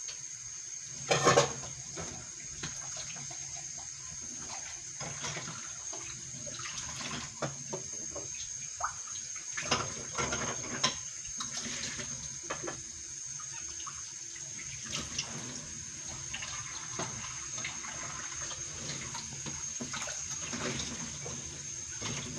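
Water droplets sizzling away on a heating non-stick pan: a steady low hiss with scattered small crackles and pops as the water boils off, and one louder click about a second in. A thin, steady high-pitched whine runs underneath.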